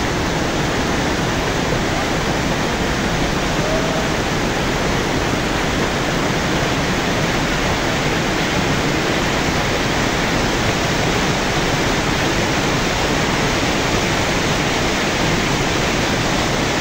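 Waterfall and mountain stream rushing close by: a steady, loud, even noise with no let-up.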